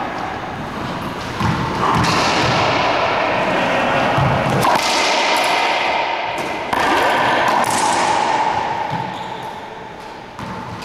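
Racquetball rally: a handful of sharp cracks as the rubber ball is struck by racquets and slams off the court walls and floor, each hit ringing on with a long echo in the enclosed court.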